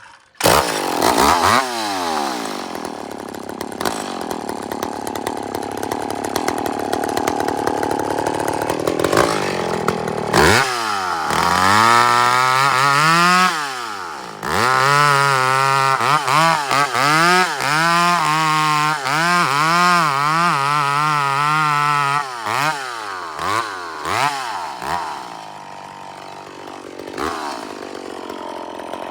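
Gas chainsaw cutting, widening the face notch (undercut) of a leaning fir. It runs steadily under load for the first ten seconds. From about 11 s its pitch rises and falls again and again as the throttle is worked, then it runs lower and in short bursts near the end.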